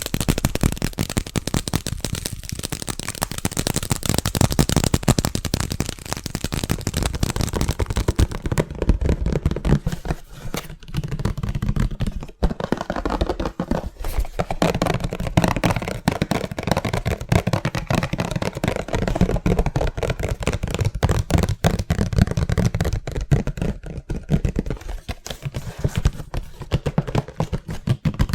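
Hands tapping very fast and hard on objects, a dense unbroken stream of taps. The stream breaks briefly about a third of the way through, and after that the taps sound brighter.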